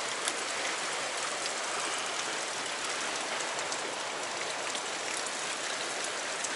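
Fast-flowing river water rushing and churning below a concrete bank, a steady even rush.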